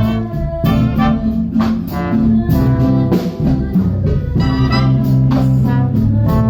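A cobla, the Catalan wind band of tenora and tible shawms with brass, plays an instrumental passage of sustained melodic notes over a moving bass line, without the voice.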